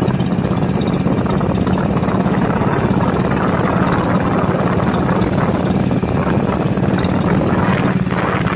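Outrigger fishing boat's engine running steadily while under way, a constant low hum at one pitch over the rush of wind and water.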